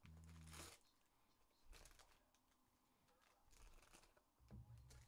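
Faint crinkling and tearing of foil trading-card pack wrappers (2023 Bowman Draft Super Jumbo packs) being opened, in a few short bursts.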